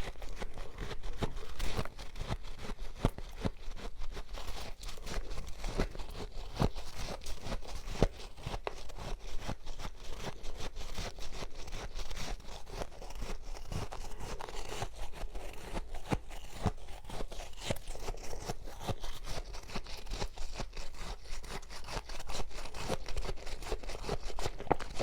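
Freezer frost crunching close to the microphone: a dense, unbroken run of crackly crunches and scrapes.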